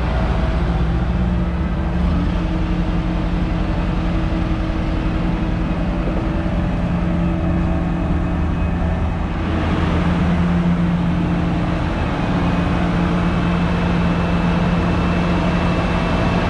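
Versatile 460 articulated four-wheel-drive tractor's diesel engine running steadily as the tractor drives across the yard, growing a little louder and fuller about nine and a half seconds in.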